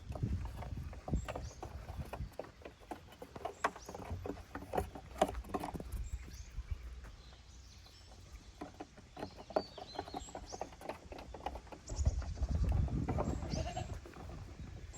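Goats bleating now and then, amid frequent light knocks and clatter.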